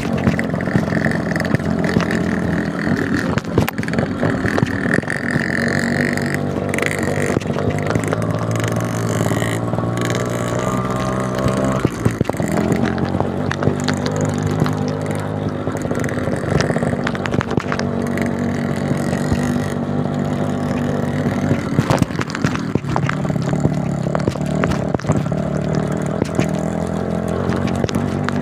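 Yamaha RX-King two-stroke motorcycle engine running as the bike rides over a rocky road. Its pitch shifts a few times with the throttle, and knocks and rattles from the rough surface come through often.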